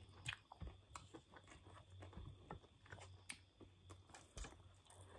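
Faint chewing and eating sounds from people eating cooked chicken with their hands, with scattered small clicks.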